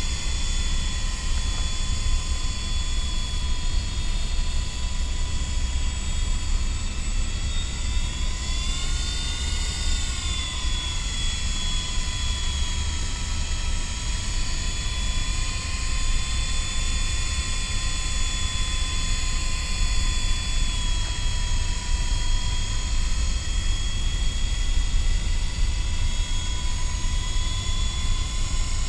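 MJX F45 electric RC helicopter in flight, its motor and rotor giving a steady high whine that rises and falls in pitch once about a third of the way through. A steady low rumble runs underneath.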